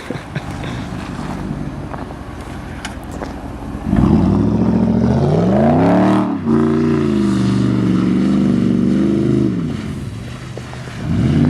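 Pickup truck's V8 engine revving hard from a low rumble: it climbs quickly, dips briefly, holds at high revs for a few seconds, then drops off and revs up again near the end. The high steady revs are typical of wheels spinning in deep snow while doing donuts.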